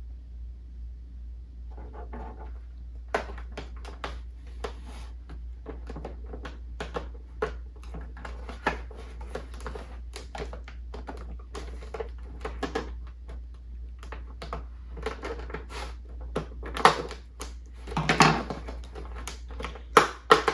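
Clear plastic toy packaging crinkling and clicking as small doll accessories are worked out of a box by hand, with sharper, louder crackles in the last few seconds, over a steady low hum.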